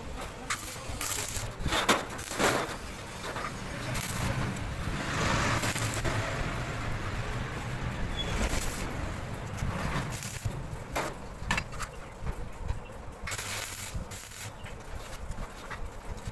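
Curled flat-iron scroll pieces clinking and knocking against each other and the steel frame as they are handled and laid out on a gate, a few sharp metal knocks scattered through, over a steady low hum.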